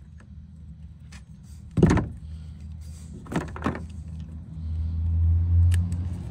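Sharp clicks and knocks of wire cutters snipping back a kayak's corroded power wire. The loudest comes about two seconds in, with two smaller ones around three and a half seconds. A low rumble swells and fades over the last two seconds.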